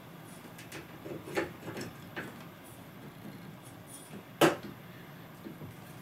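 Light clicks and knocks of an F30 T8 fluorescent tube being fitted into the lamp holders of a preheat strip-light fixture, with one sharp click about four and a half seconds in.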